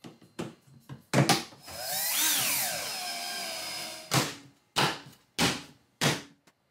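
Plastic trim of a Tesla Model Y's frunk area being knocked and pressed into place: a few sharp clacks, then a whirring, scraping sound for a couple of seconds that rises and then falls in pitch, then four firm knocks about half a second apart as the cowl panel is pushed down onto its clips.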